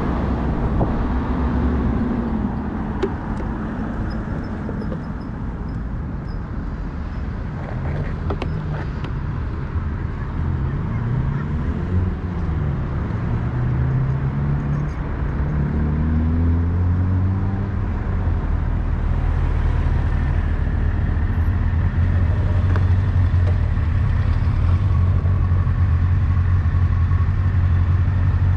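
Street traffic: motor vehicle engines running close by, their pitch rising and falling as they speed up and slow down around the middle, over a constant low rumble. A steady low engine hum holds from about halfway on.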